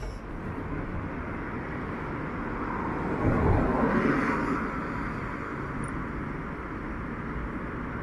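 City street traffic noise, with a vehicle driving past that swells to its loudest about three and a half seconds in and then fades.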